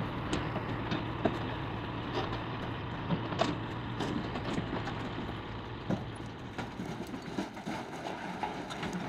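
A vehicle engine running steadily while a load of rocks tips out of a raised dump box into a trench, the stones clattering and knocking against one another.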